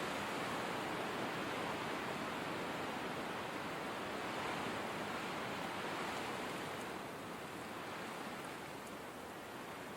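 Steady blizzard wind, an even rushing hiss without gusts or distinct events, easing slightly near the end.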